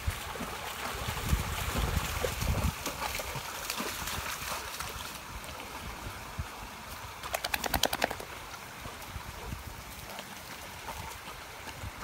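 Mastiffs wading and splashing through a shallow stream, water sloshing around their legs. A quick run of about ten sharp ticks comes a little past the middle.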